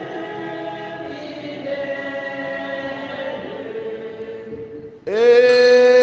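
Choir singing a slow liturgical chant in long held notes. About five seconds in, a louder held note begins.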